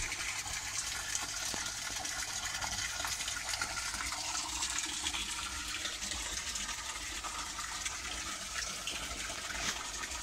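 Water running and splashing steadily into a koi pond.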